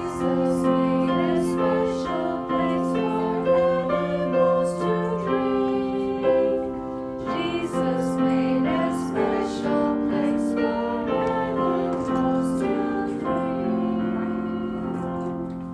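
A children's Sabbath school song: piano accompaniment with a woman singing, the music tapering off near the end.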